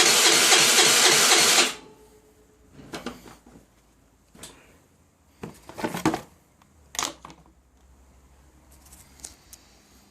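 Baotian Tanco 50cc four-stroke scooter engine turning over with a fast, even pulse, then cutting off abruptly a little under two seconds in. A few scattered clicks and knocks follow.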